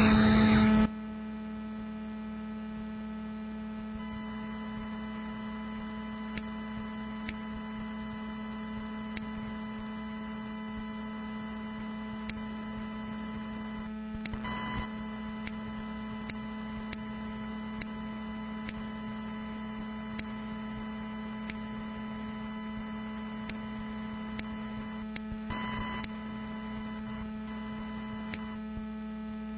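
A synthesized sound from Coagula drawing-to-sound software cuts off abruptly about a second in. It leaves a steady electrical hum made of several held tones, with scattered faint clicks.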